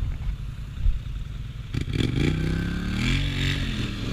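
ATV engine idling low, then revving up about two seconds in as the quad pulls away, its pitch climbing, easing briefly and climbing again.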